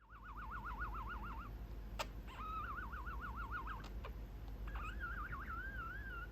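Budgerigar whistling: three clear warbling phrases, the pitch wavering quickly up and down, the last one rising slightly and steadier. A single sharp click falls between the first two phrases.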